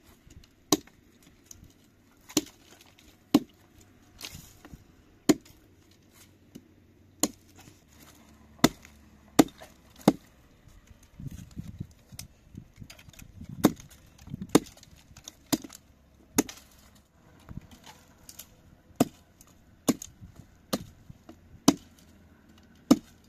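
Hatchet chopping into a gnarled wooden tree stump: sharp, loud blows roughly one a second, irregularly spaced, with a break of a few seconds about halfway through.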